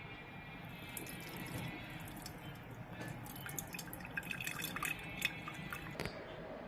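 Freshly blended lemon-mint juice dripping and trickling through a strainer, with many small drips, and a light knock about six seconds in.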